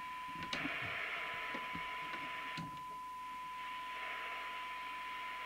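Uniden Uniace 100 FM CB radio's speaker giving a steady 1 kHz test tone from a signal generator, under a layer of receiver hiss, as the set is aligned for receive with the generator turned down low. Two sharp clicks come about half a second in and at about two and a half seconds.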